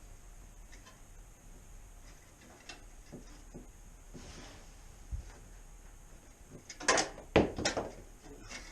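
Light clicks and scrapes of hand tools and metal exhaust hardware being handled, with a short run of loud clattering knocks about seven seconds in.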